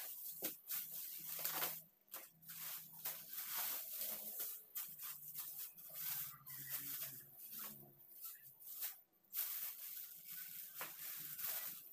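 Groceries being handled and put away: irregular rustling, rubbing and light knocks, with no steady rhythm.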